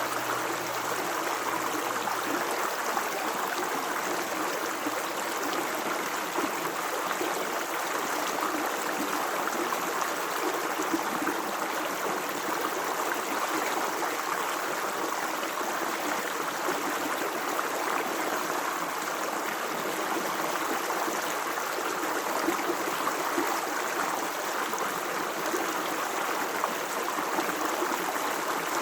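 Stream of water running and gurgling steadily.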